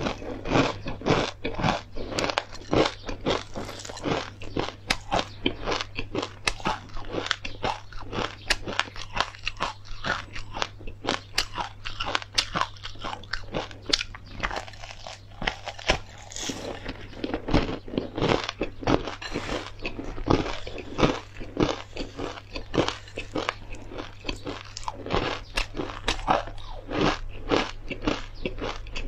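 Close-miked biting and chewing of a brittle slab of stir-fried perilla, flax seeds, pumpkin seeds and dried chilies: dense, sharp crunches, several a second.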